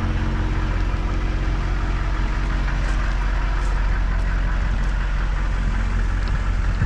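M1008 CUCV's 6.2-litre diesel V8 idling steadily.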